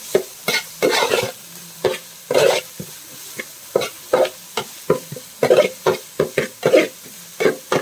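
Metal ladle scraping and stirring chopped vegetables around a wide aluminium pan in quick, irregular strokes, over a faint sizzle of the vegetables stir-frying in hot oil.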